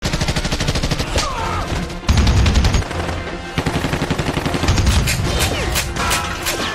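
Bursts of automatic assault-rifle fire from several guns, rapid overlapping shots, heaviest about two seconds in.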